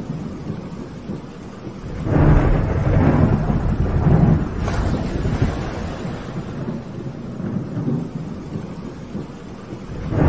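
Thunderstorm ambience: rolling thunder over steady rain. A loud rumble builds about two seconds in, with a sharp crack near the middle, fades slowly, and a new rumble swells at the end.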